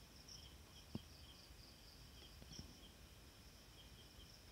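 Near silence: faint high insect chirping that pulses in two pitches, with a soft click about a second in.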